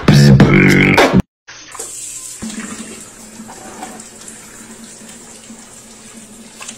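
About a second of guitar music that cuts off abruptly. Then water runs steadily from a tap.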